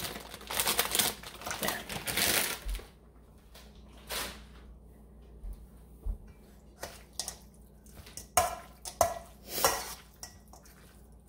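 Plastic bag crinkling as frozen blue mussels are tipped into a stainless steel bowl of raw meat, for the first two and a half seconds. After that, scattered clinks and scrapes of a spoon against the steel bowl as the raw meat is stirred, most of them near the end.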